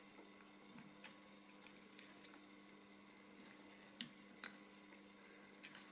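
Near silence with a faint steady hum and a few light clicks, the sharpest about four seconds in.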